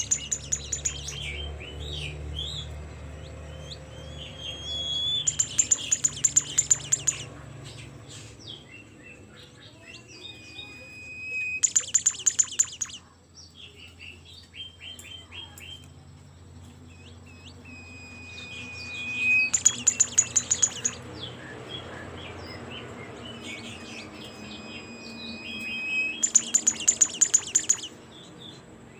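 A Bimoli songbird singing in full, busy song: about every six seconds a loud, fast rattling trill lasting about a second and a half, with clear whistled notes and short chirps in between.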